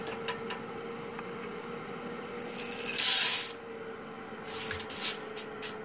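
Freshly roasted coffee beans poured into a wire-mesh strainer: a short rattling rush about three seconds in, followed by a few light clicks as the beans settle. A steady hum from the bean cooler's fan runs underneath.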